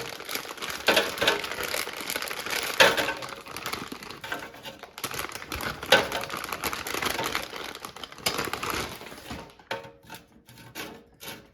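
Frozen cheeseburger bites being set one by one into an air fryer basket: irregular clacks and knocks on the basket mixed with the rustle of the plastic wrapper, thinning to a few light ticks near the end.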